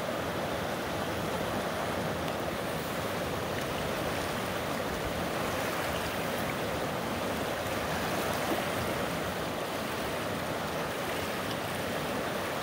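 Fast river water rushing steadily over rocky rapids, a constant even rush with no breaks.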